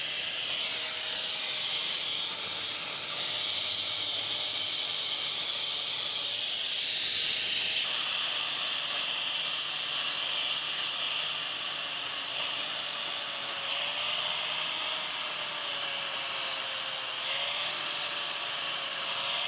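Handheld angle grinder running with its abrasive disc pressed against the hardened steel face of a C-purlin machine cutting blade: a steady high whine that wavers slightly, over a dense hiss of grinding, swelling briefly about seven seconds in. The blade is being ground level because it was jamming while cutting.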